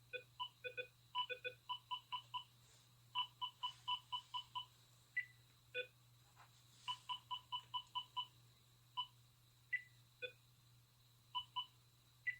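Pong video-game bleeps played back through a Rapido model diesel locomotive's sound decoder: short electronic beeps at two or three pitches in an uneven bouncing rhythm, a few a second, faint over a steady low hum.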